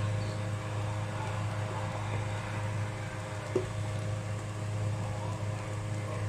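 A steady low hum with an even hiss under a pot of thick porridge on the stove, and one light knock of the ladle against the pot about three and a half seconds in.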